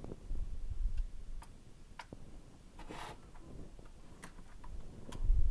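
Scattered light clicks and taps of small plastic model-train parts being handled, with low bumps in the first second and a short rustle about three seconds in.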